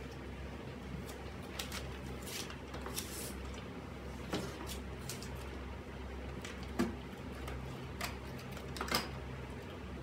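Dusting on a wooden TV cabinet: a cloth rubbing over surfaces and light knocks and clatters, about half a dozen, as small objects are lifted and set down. A steady low hum runs underneath.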